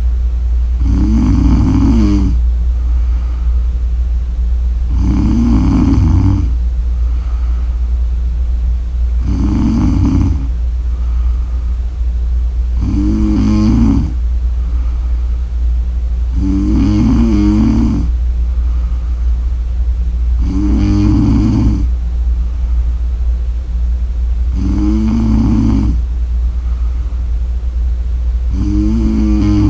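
A woman snoring in her sleep, about eight snores spaced roughly four seconds apart, each lasting about a second, over a steady low hum.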